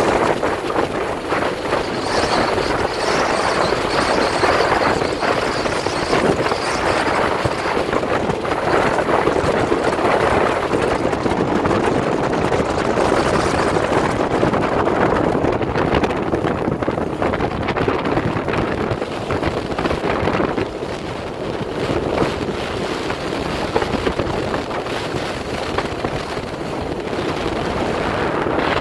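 Bass boat running at speed across choppy water: outboard motor running under a steady loud rush of wind over the microphone, with the hull slapping through the whitecaps.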